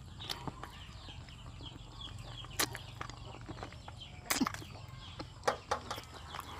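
Close-miked mouth sounds of eating by hand: chewing and wet lip smacks as fingers are sucked clean, with sharper smacks about two and a half, four and five and a half seconds in.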